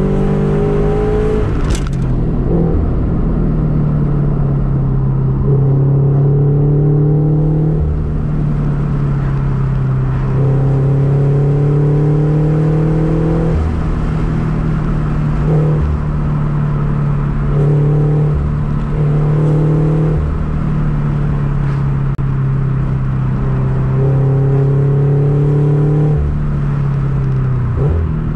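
Subaru BRZ's flat-four engine and road noise heard from inside the cabin while driving: a steady low drone, with the engine note rising in several short spurts of acceleration.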